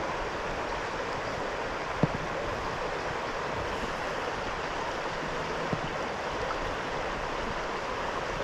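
Creek water flowing in a steady rush, with one short knock about two seconds in.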